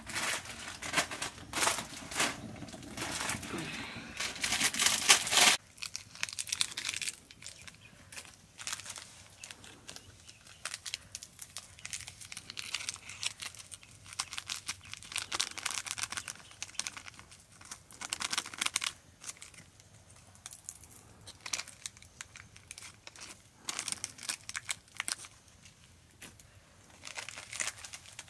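Plastic noodle packets crinkling and dry instant noodles crunching, a run of small irregular crackles. It is louder and busier for the first five seconds or so, then drops suddenly to quieter, scattered crinkling.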